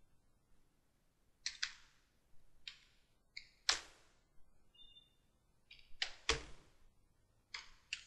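Computer keyboard keystrokes typing in a product key: separate clicks in small irregular bunches with pauses between them, two strokes noticeably sharper and louder than the rest.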